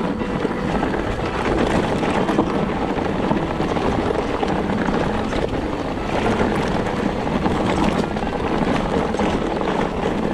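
Mountain bike riding fast down a dirt and gravel trail: steady wind noise on the camera microphone over the rumble of the tyres and the rattle of the bike on rough ground.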